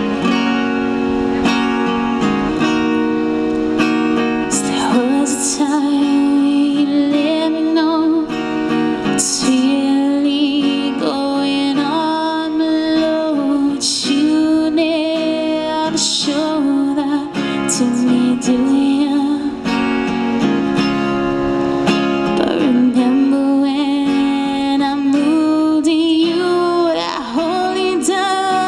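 Acoustic guitar strummed in a steady rhythm, with a woman singing over it from about five seconds in.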